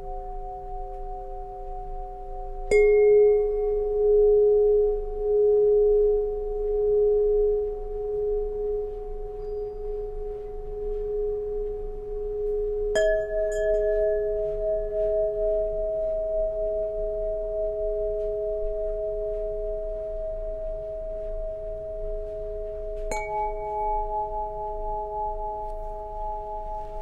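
Solfeggio tuning pipes struck one at a time, three strikes about ten seconds apart, the first the loudest. Each gives a clear, long ringing tone that overlaps the pipes still sounding, and the tone added later is higher.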